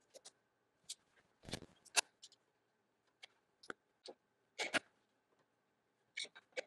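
Scattered light clicks and taps of a cable management tray and a ruler being handled and positioned against the underside of a desktop, with one duller knock about a second and a half in.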